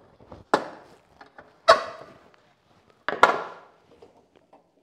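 Handling knocks as a wooden board and the rip fence are set against a Shopsmith's tilted saw table: three sharp knocks roughly a second apart, each ringing briefly, with small clicks and scrapes between.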